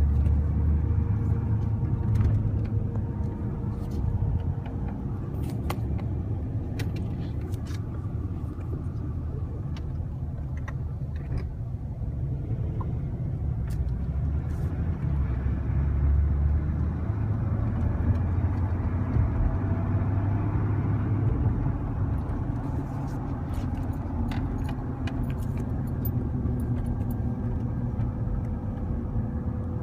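A 2008 Ford Ranger FX4 is driving, with a steady low road and drivetrain rumble. Over it runs a thin, steady whine that is clearest in the first few seconds and again near the end, with scattered light rattles. The whine comes only at about 35–45 km/h, in gear or in neutral, accelerating or cruising; the owner cannot find its cause.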